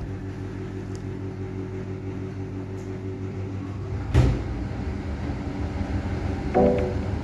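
Washing machine running with a steady motor hum, with a single thud about four seconds in.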